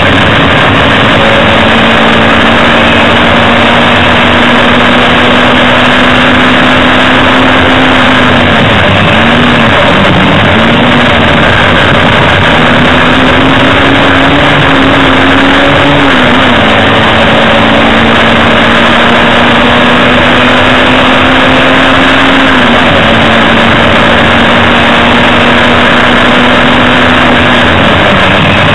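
Hillman Imp race car's rear-mounted four-cylinder engine running hard at high revs, heard from inside the cabin under a dense haze of road and wind noise. Its pitch holds high and drops briefly several times before climbing again.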